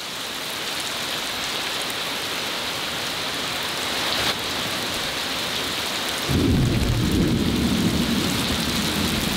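Heavy rain pouring steadily. About six seconds in, a deep rumble of thunder comes in over it and keeps on.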